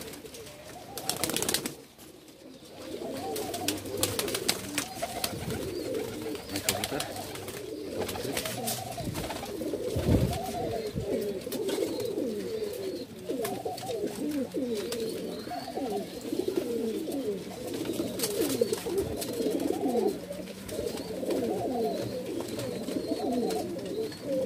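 A flock of domestic pigeons cooing continuously, many calls overlapping. There are a few clicks and one low thump about ten seconds in.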